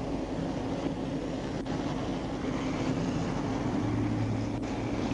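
Steady engine hum of an idling vehicle, growing a little louder and deeper near the end, with a couple of faint clicks.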